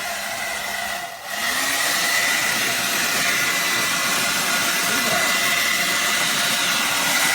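REVLON Turbo 1875-watt hair dryer blowing, a steady rush of air with a thin high whine. About a second in it cuts out briefly and comes back louder.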